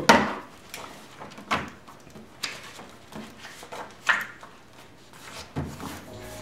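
Paper log book being handled on a table: pages turned and pens picked up and put down, giving a few sharp taps and rustles about a second apart. Soft background music comes in near the end.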